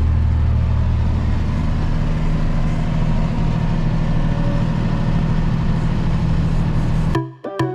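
Vehicle engine running at a steady speed, a low even drone. Near the end it cuts off abruptly and music with plucked notes begins.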